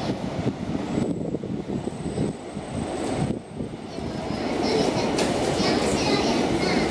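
Osaka Municipal Subway Chuo Line train running on the rails past the station, a steady rumble of wheels and motors. A thin high whine sounds for a couple of seconds early on. From about four seconds in the rail noise grows louder, with high, uneven squealing.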